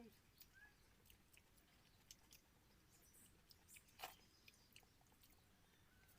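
Faint chewing and wet mouth clicks of someone eating basi pokhal, rice soaked in water, with vegetable curry. The sounds are scattered and irregular, with one louder click about four seconds in.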